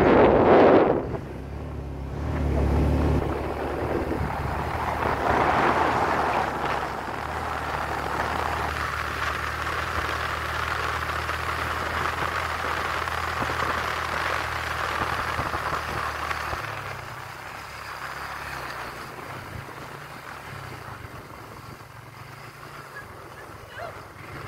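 Motorcycle engine running steadily under wind rushing over the microphone, with a loud gust in the first second. About two-thirds of the way through the engine note drops away, leaving mostly wind and road noise.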